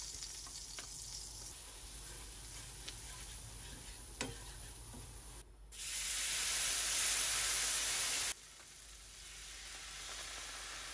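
Butter and flour sizzling in a hot frying pan as a roux for pork cutlet sauce cooks. From about six to eight seconds in the sizzling turns much louder and brighter as Worcestershire sauce is poured into the hot pan, then it settles back to a quieter sizzle as milk goes in. A single sharp tap about four seconds in.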